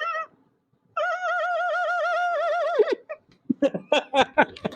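A child imitating a kite's call: a high, warbling cry that breaks off just after the start, starts again about a second in and holds for two seconds before dropping in pitch. A run of short, choppy broken sounds follows.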